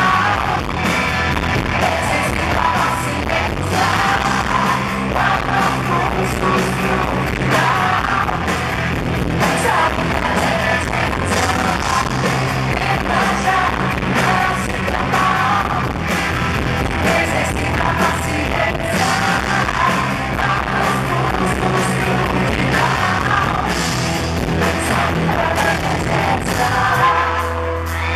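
Live rock music: a woman sings lead into a microphone over a loud full band with a steady drumbeat.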